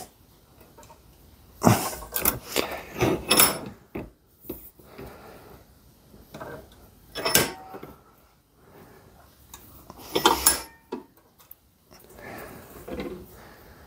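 Metal knocks and clatter from a Ford 351 Windsor harmonic balancer being handled and shifted in a bench vise while its inertia ring is worked onto the rubber ring. A quick run of knocks comes about two to three seconds in, then louder single knocks around seven and ten seconds in, and softer handling sounds near the end.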